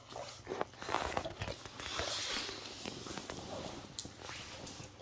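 French bulldog growling in short, uneven bursts, one longer and noisier about two seconds in, with a few sharp clicks near the end.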